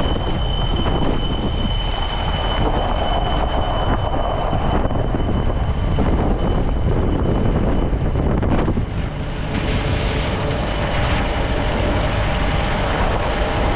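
Jeep driving over a rough off-road track: engine running with a steady rumble and the body rattling, heard from the driver's seat. A thin high whine runs through the first eight seconds or so, then stops.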